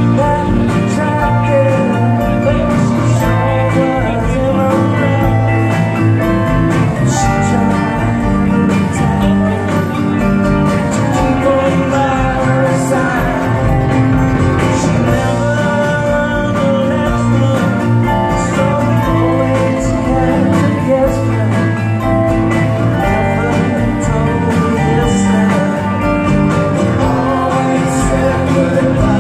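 Live band playing a song on acoustic and electric guitars, drums and keyboards, with a lead vocal.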